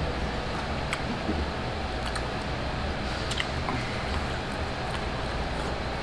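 Steady indoor background hum with a few faint clicks.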